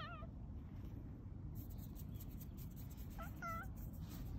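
Calico cat meowing: the end of one meow at the start, then two short meows in quick succession about three seconds in.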